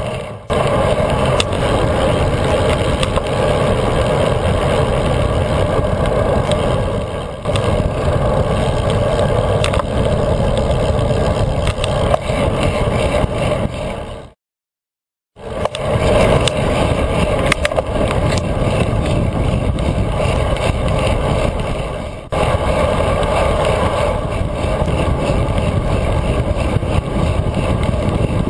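Steady wind and road rush on a GoPro in its housing, riding along on a road bike at speed, heavy in the low end. The sound cuts out completely for about a second midway.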